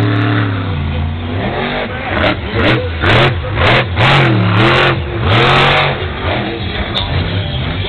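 Monster truck's supercharged methanol-burning V8 revving hard in repeated blips as the truck drives and turns on dirt, its pitch swinging up and down. The loudest blips come in a run from about two to six seconds in.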